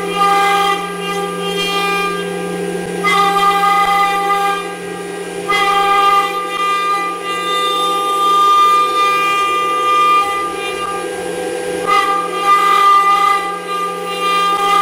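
Background music of long, held notes that change every few seconds.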